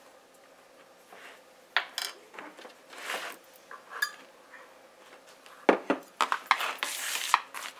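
Light clicks and taps of a plastic measuring spoon and bowl as baking powder is added to flour, with a sharper knock a little after halfway. Over the last two seconds a hand mixes the dry flour in the plastic bowl: a soft rustling scrape.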